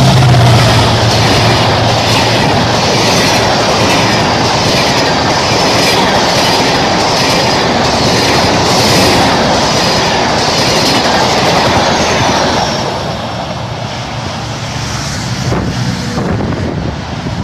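Diesel-hauled express passenger train passing close at about 120 km/h. The locomotive's engine drone drops in pitch as it goes by at the start, then the coaches rush past with a rhythmic clickety-clack of wheels over rail joints. The sound falls away after about twelve seconds as the train recedes.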